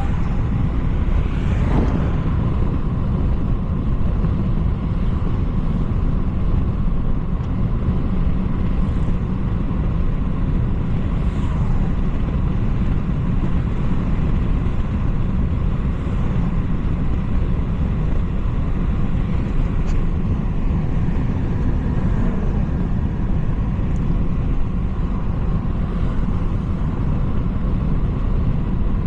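BMW 330i (G20) on the move: steady engine and road noise at an even speed, a low, constant rumble with no revving. The car's engine is a turbocharged 2.0-litre four-cylinder.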